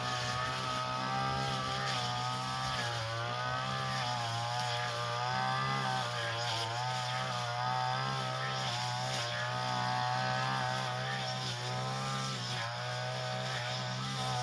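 Small engine of a Tanica grass-cutting machine running steadily at speed, its pitch wavering slightly up and down.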